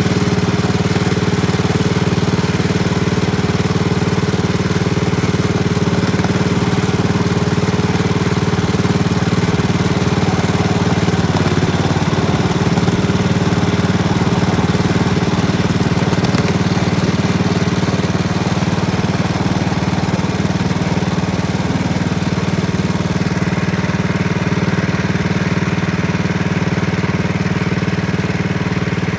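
Small engine of a ride-on miniature railway locomotive running steadily at an even speed.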